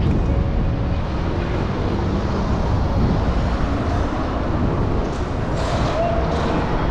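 Steady vehicle noise, heavy in the low end with a hiss over it, with brief hissing swells about five to six and a half seconds in.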